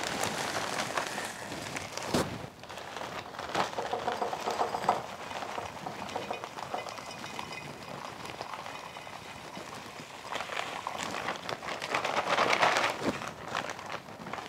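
Dry crumbled freeze-dried eggs pouring from a plastic zip-top bag through a funnel into a glass jar: a steady patter of dry granules with the bag crinkling. It swells at the start and again near the end.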